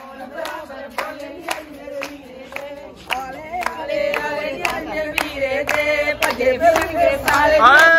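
A group of women singing together with steady hand clapping, about two claps a second. The singing gets louder near the end with long held notes.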